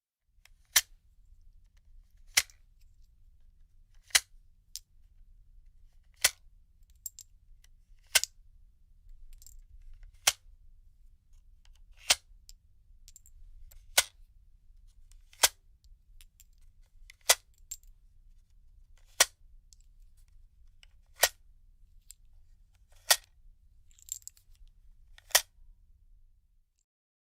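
Gun sound effect: sharp single clicks or shots about once every two seconds, with fainter metallic clicks between some of them, over a low hum that stops near the end.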